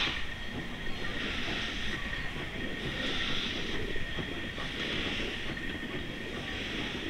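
W-class steam locomotive moving slowly on the triangle: a steady hiss with a thin, high, steady whine over it.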